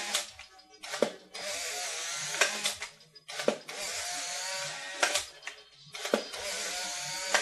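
Polaroid SX-70 Model 1 folding camera firing three times in a row while it is being tested with dummy film after a repair. Each cycle opens with a shutter click, then the ejection motor runs for about a second and a half as a sheet is pushed out through the rollers.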